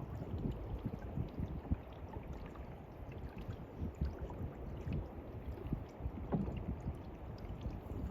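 Canoe being paddled: paddle strokes dipping and splashing in the water, with small irregular knocks and drips against the hull. A steady low rumble of wind on the microphone runs underneath.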